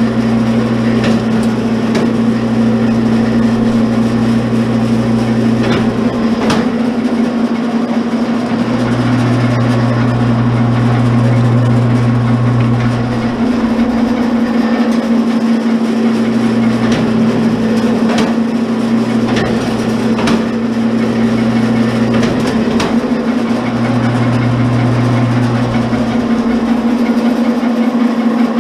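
Commercial electric wire stripper running with a steady motor hum while wire is fed through it. A deeper hum swells and drops away several times, and there are occasional sharp clicks.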